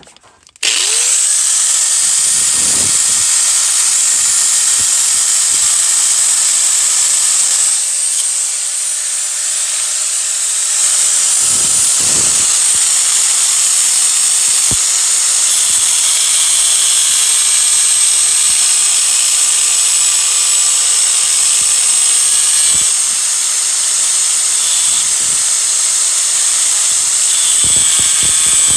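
Power tool grinding out the metal of a broken intake manifold bolt: a loud, steady high-pitched whine that starts about half a second in and eases briefly about eight seconds in.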